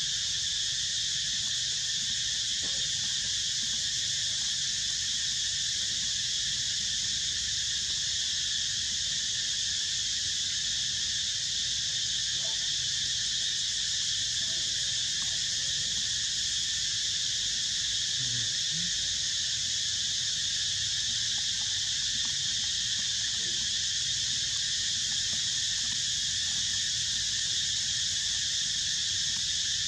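A steady chorus of insects droning at several high pitches at once, unbroken throughout, over a faint low rumble.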